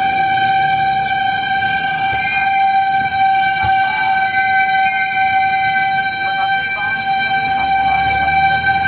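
Fire engine's warning horn held on one steady high tone, unbroken and not rising or falling, over the low rumble of the truck's engine.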